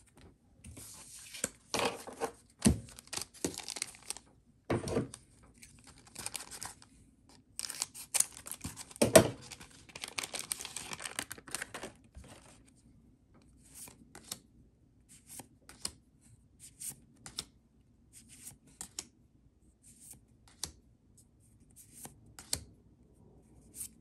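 Foil booster pack of MetaZoo trading cards being torn open and crinkled by hand, with dense rustling for the first half. After that come scattered light ticks and flicks as the cards are handled and sorted.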